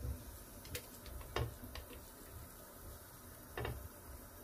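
Butter melting in a nonstick pot, with a faint sizzle under a few light taps and scrapes of a knife against the pan as the pats are pushed around; the clearest tap comes near the end.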